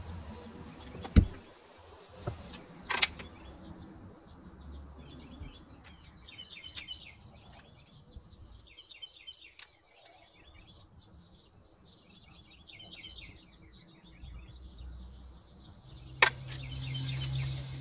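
Birds chirping, with a sharp click about a second in and another about three seconds in. About sixteen seconds in, a click and the electric starter begins cranking the 1982 115 hp inline-six outboard, a steady low hum that grows louder.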